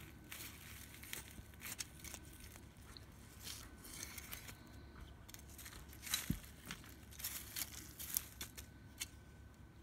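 Small hand trowel scraping and digging through loose, lumpy garden soil: a faint, irregular string of scratches and crunches, with one dull thump about six seconds in.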